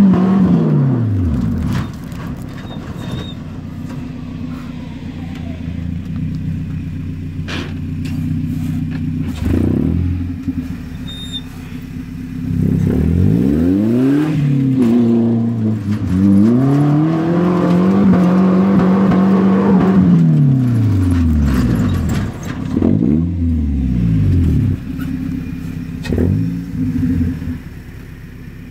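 Pickup truck's swapped-in 2RZ four-cylinder engine revving hard under load: high revs that drop away about a second in, then several rev-ups, one held steady near the top for about four seconds before falling, and a few short blips near the end.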